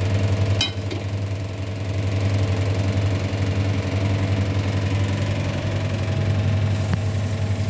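A steady low machine hum runs throughout, with a single sharp clink about half a second in.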